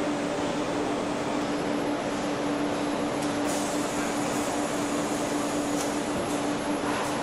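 Steady machinery noise of an engine plant's production floor: an even rush of noise with a constant hum running through it and a few faint clicks.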